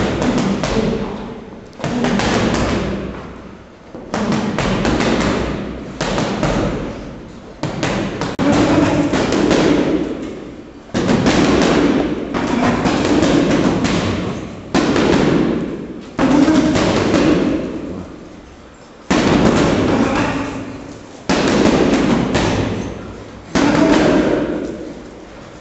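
Boxing gloves pounding a heavy punching bag in fast flurries of punches. Each flurry starts suddenly and dies away after a second or two, then another starts, about a dozen in all.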